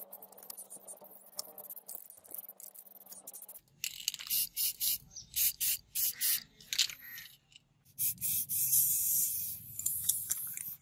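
Aerosol spray-paint can hissing in a run of short quick bursts, then one longer spray lasting about two and a half seconds near the end. Before the spraying there are only faint scattered ticks.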